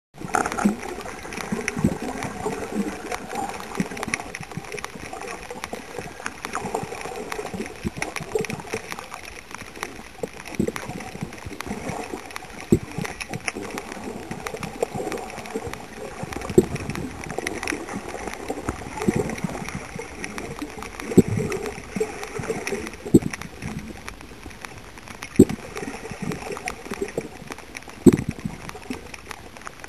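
Water splashing and gurgling, with scattered short knocks, a few of them louder, in the second half.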